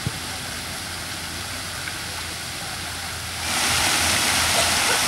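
Tiered outdoor fountain's water splashing steadily, with a brief click just after the start; the splashing gets much louder and brighter from about three and a half seconds in.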